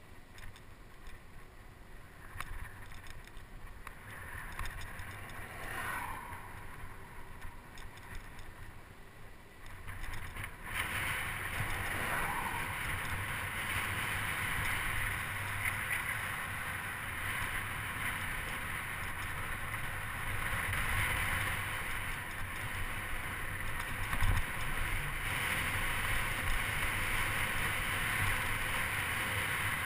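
Wind rushing over the microphone of a bicycle-mounted camera, with tyre rumble from riding on cracked asphalt. It gets noticeably louder about a third of the way in.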